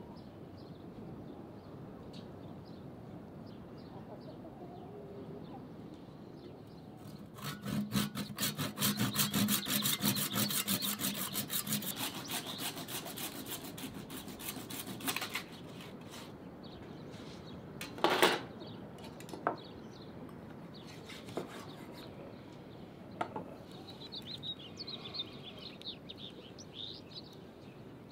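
Hand sawing: fast, even back-and-forth strokes for about eight seconds, starting about seven seconds in, followed by one loud knock and a few lighter ones. Birds chirp near the end.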